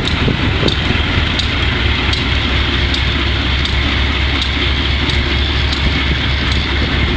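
GE B30-7 diesel locomotive's 16-cylinder engine running steadily, with a sharp tick repeating about every three-quarters of a second. The locomotive has bad injectors.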